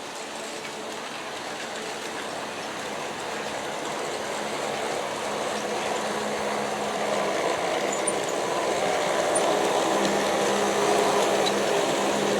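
G-scale model coal train running on garden-railway track, its wheel and locomotive motor noise growing steadily louder as it comes closer.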